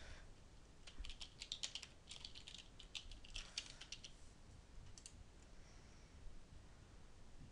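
Faint typing on a computer keyboard: quick runs of keystrokes through the first half, then a single click about five seconds in.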